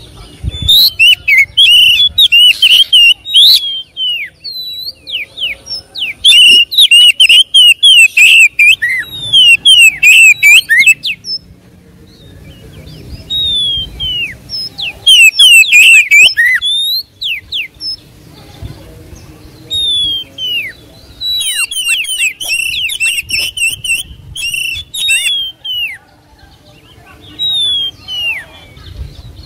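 Oriental magpie-robin (kacer) singing loudly: rapid, varied whistled phrases in about six bursts of a few seconds each, with short pauses between them.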